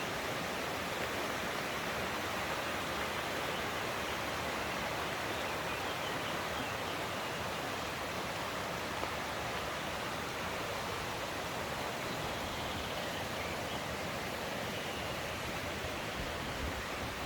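Mountain stream rushing steadily: an even wash of flowing water with no breaks.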